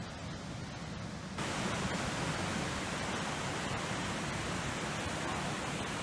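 Steady rush of water pouring over rock at a waterfall, jumping suddenly to a louder, fuller rush about a second and a half in.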